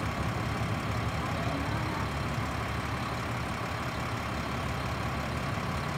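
Recycling truck's diesel engine idling steadily while the truck stands still.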